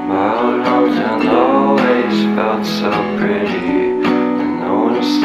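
Background music led by a strummed acoustic guitar, with sharp repeated chord attacks.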